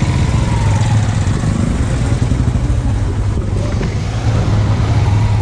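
Motorcycle engine running steadily at low speed, heard close up from on the bike, with a constant low hum.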